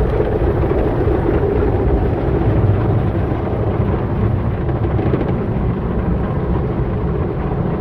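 Automatic car wash heard from inside the car: rotating wash brushes and water spray beating on the windshield and body, a steady, loud rushing noise.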